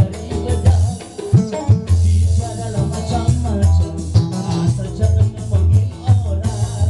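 A live band playing an upbeat song with a steady bass and drum beat and shaken percussion, with a singer singing into a microphone over it.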